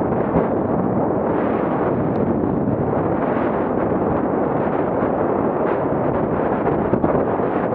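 Mountain bike descending a dirt trail at speed: steady wind buffeting on the Garmin VIRB Elite action camera's microphone, mixed with the rumble and rattle of tyres and bike over the rough ground, with a few small clicks.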